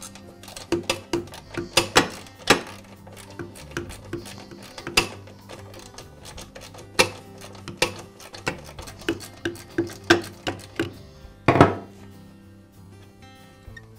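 Sharp metallic clicks and clinks of a socket wrench working the pump's mounting bolts, coming irregularly a couple of times a second, with a louder clunk near the end; background music plays underneath.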